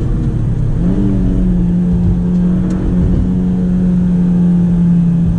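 Honda Civic G8's 1.8-litre four-cylinder engine pulling hard, heard from inside the cabin over road rumble. The note dips briefly at a gear change near the start, climbs about a second in, then holds steady at high revs.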